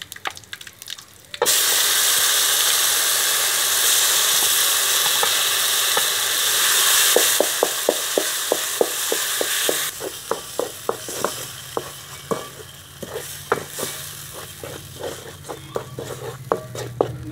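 Ground green tamarind chutney paste tipped into hot oil in a metal pan: a sudden loud sizzle starts about a second and a half in and drops off sharply after about ten seconds. A wooden spatula stirs the paste, knocking and scraping against the pan in quick, irregular taps through the second half.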